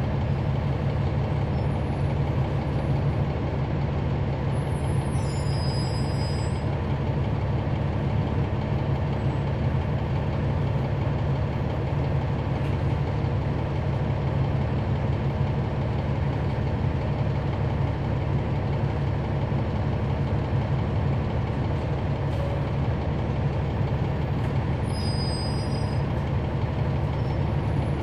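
Cummins ISL9 diesel engine of a 2011 NABI 416.15 transit bus, heard from inside the passenger cabin, running steadily without changing pitch. Faint high squeaks come in briefly about five seconds in and again near the end.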